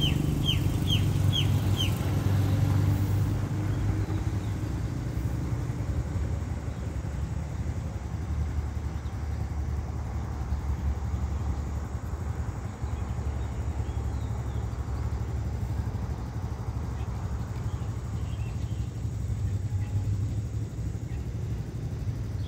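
A steady low rumble throughout, with a bird calling a quick run of short, falling chirps in the first two seconds.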